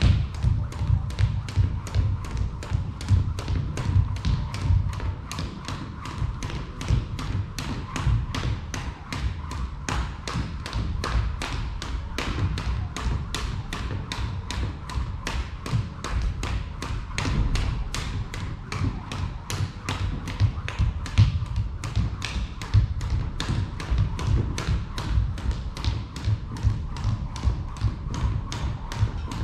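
Skipping rope slapping a wooden gym floor in a steady, even rhythm, with the thud of feet landing on each jump.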